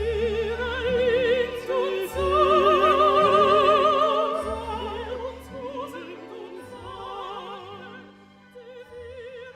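Operatic singing with wide vibrato on long held notes over orchestral accompaniment, growing quieter in the last couple of seconds.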